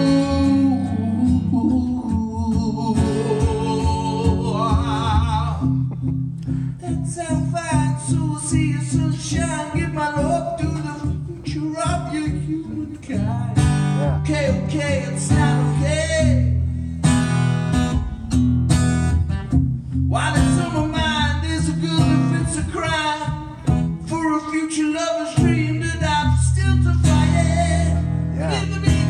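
A man singing while strumming an acoustic guitar, a solo live acoustic performance.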